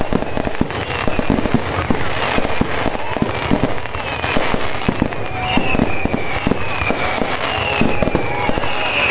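Fireworks and firecrackers going off in a rapid, continuous string of bangs and crackles, with several falling whistles running over them.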